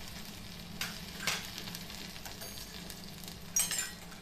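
Finely chopped garlic and grated ginger sizzling in hot ghee in a small iron kadhai while the tadka (tempering) is made, with a few sharp crackles, the loudest cluster near the end.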